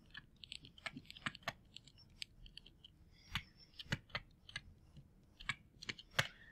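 Faint stylus tapping and scratching on a tablet screen while handwriting: an irregular run of small clicks, with a few sharper taps in the second half.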